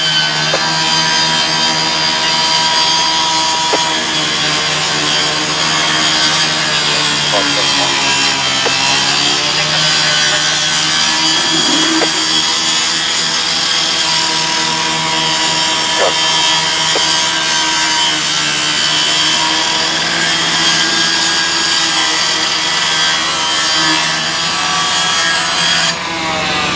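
Two-stroke gasoline cut-off saw (rescue saw) with a disc blade, running at high speed as it cuts through the metal of a burned car body. Its pitch sags as the blade bites under load, then recovers.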